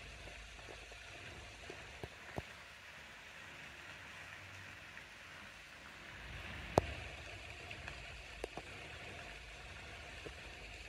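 Outdoor background noise: a steady hiss with a low wind rumble on the microphone that grows stronger from about six seconds in, and a few sharp handling clicks, the loudest about seven seconds in.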